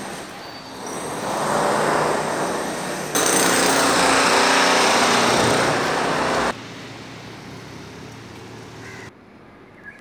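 Renovation power drilling, a hammering kind of noise: it swells up once, then runs loud and steady for about three seconds, starting and stopping abruptly about three and six and a half seconds in. A quieter machine noise is left after it.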